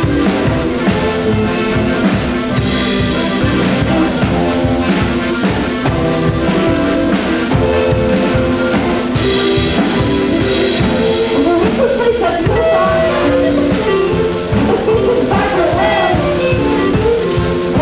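Band music with a drum kit keeping a steady beat, pitched instruments and singing.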